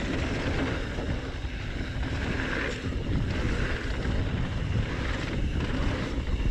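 Wind buffeting the camera microphone as a mountain bike rolls fast down a dirt trail, over the rumble of the tyres on the dirt, with a few brief rattles from bumps.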